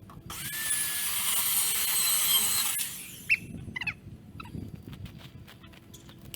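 Evolution S185 7-1/4-inch metal-cutting circular saw with a carbide-tipped blade cutting through rusted metal pergola framing for about three seconds, then stopping. A short, sharp squeal follows, then a few scattered clicks.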